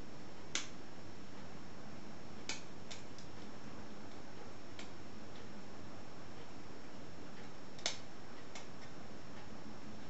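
Lever lock picks working inside an ERA Viscount 5-lever mortice lock: sharp, irregular metallic clicks every second or so, the loudest about half a second in and near 8 s, over a steady background hiss.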